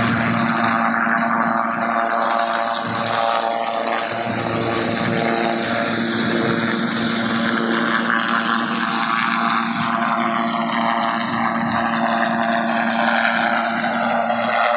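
Helicopter running steadily, a constant engine tone under dense rotor and turbine noise, with a slow downward sweep in the higher sound.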